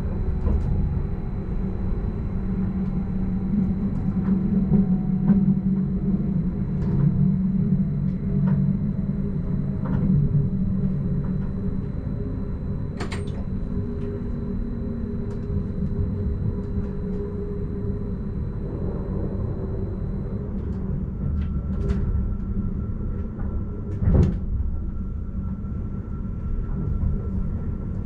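Stadler RABe 515 electric multiple unit running, heard from the driver's cab: a steady rumble of wheels on rail, with a whine that falls slowly in pitch through the first half and a few sharp knocks, the loudest a little before the end.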